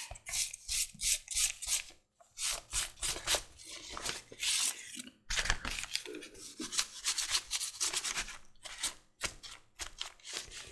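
An applicator rubbing Resolene finish onto dyed leather: quick repeated strokes, with two short pauses.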